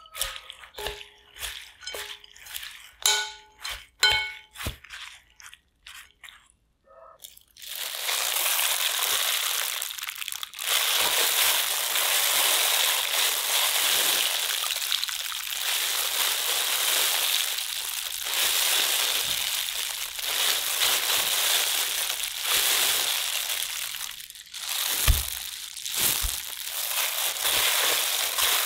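A wooden spoon knocking and scraping against a glass bowl while stirring shredded potato, the glass ringing briefly with each knock. From about eight seconds in, a steady crunchy rustling of wet julienned potato strips being handled and tossed in the bowl.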